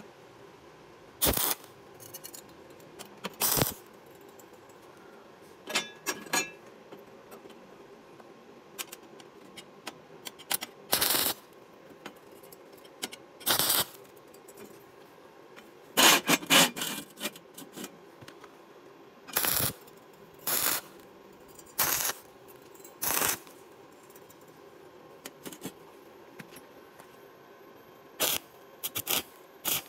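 Stick (arc) welder laying a series of short tack welds on steel angle and plate: about a dozen brief bursts of the welding arc, each under a second, with quiet between. The longest and loudest burst comes a little past halfway.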